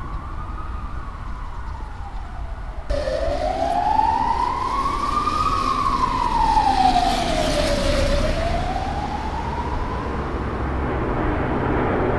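A slow, siren-like wailing tone that rises and falls in pitch, each swing taking about two and a half seconds. About three seconds in it jumps louder with more hiss, as if a different recording takes over, and the wail carries on rising and falling over a low rumble.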